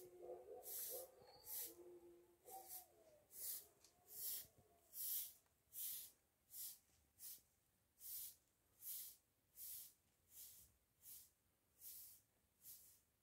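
Faint footsteps at a steady walking pace, about four steps every three seconds.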